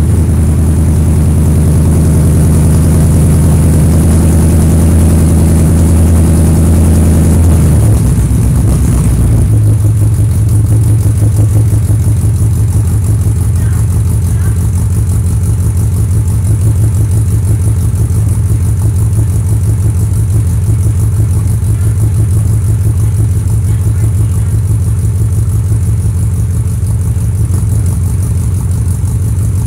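Range Rover engine idling through a custom exhaust, heard close to the pipe under the vehicle. About eight seconds in the engine speed drops and settles into a lower, steady idle with the exhaust pulses clearly audible.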